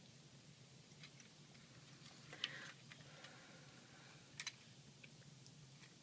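Near silence with a few faint clicks of plastic Lego train pieces being handled: one a little over two seconds in and a sharper one past four seconds.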